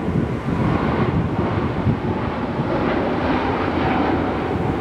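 Boeing 747-8F freighter's four General Electric GEnx turbofans running at takeoff thrust as it rolls and lifts off: a loud, steady, deep rush of jet noise, with wind buffeting the microphone.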